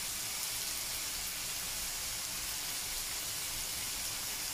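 Brinjal, tomato and onion pieces frying in oil in a pan: a steady, even sizzle.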